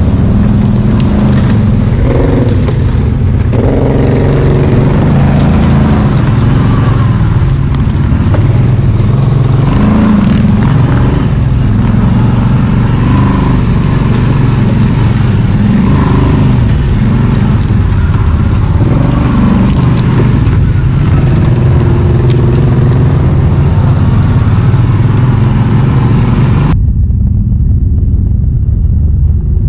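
ATV (quad bike) engine running loudly as the quad is ridden, with the pitch shifting as the throttle changes. For the last few seconds the sound turns dull and muffled.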